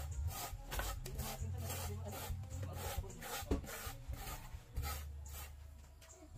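Rasping strokes of a wall surface being rubbed down by hand, as in sanding, about three strokes a second, growing fainter near the end.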